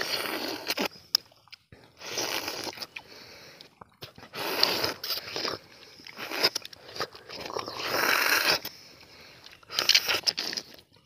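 Tender palmyra fruits (ice apples) being eaten straight from the cut husk: wet slurping and biting of the soft jelly-like flesh and juice, in about five bursts of a second or so with short pauses between.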